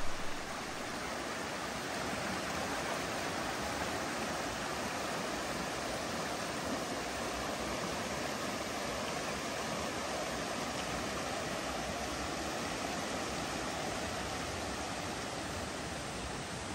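Steady rushing of a mountain stream, an even unbroken flow of water.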